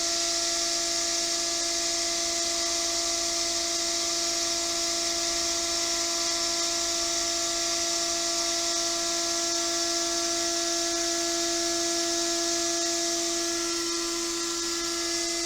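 ESAB 3500AHMA welding positioner's hydraulic pump unit running under load as the table tilts: a steady high-pitched electric whine over a hiss.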